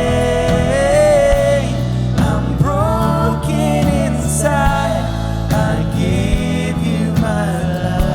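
Contemporary Christian worship music from a live band, a slow song with singing over steady bass and chords.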